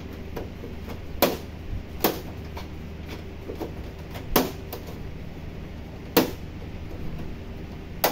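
Sharp plastic clicks and snaps as the plastic back cover of a flat-screen TV is pried loose along its edge with a flat screwdriver, its clips popping free. Five louder clicks come one to two seconds apart, with fainter ones between.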